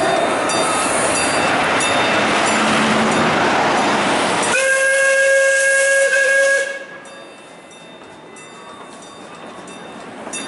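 Steam locomotive hissing loudly with escaping steam, then a whistle blast of about two seconds starting about four and a half seconds in, after which the sound drops to a much quieter level.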